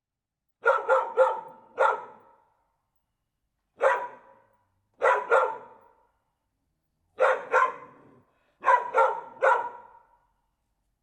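Dog barking in short clusters: four barks near the start, then single, paired and triple barks, each cluster separated by a second or two of silence.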